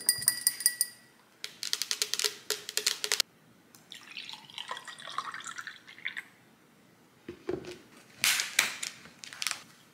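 A screw cap twisted off a bottle of apple juice with a run of crackling clicks, then juice poured into a cup for about two seconds. A few knocks and taps come near the end as the bottle and cup are handled.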